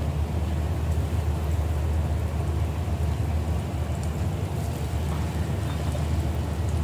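Battered shrimp tempura frying in a deep-fat fryer, the oil sizzling and bubbling with faint crackles as a fresh piece goes in. A steady low rumble runs beneath it.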